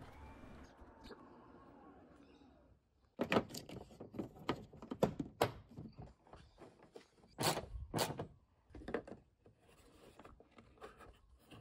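Faint motor whine of a 5th-gen Toyota RAV4's powered lift supports as the liftgate power-closes, fading out after about two seconds. Then a run of sharp, irregular plastic clicks and knocks as the liftgate's interior trim handle is pressed back into place.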